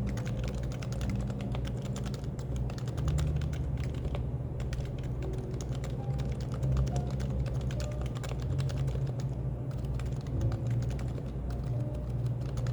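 Typing on a Happy Hacking Keyboard (HHKB): quick runs of keystrokes broken by short pauses, over a low, steady café background noise.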